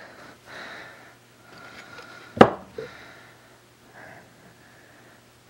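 Light handling noises of small metal parts, with one sharp click a little under halfway through and a softer click just after. A faint steady hum sits underneath.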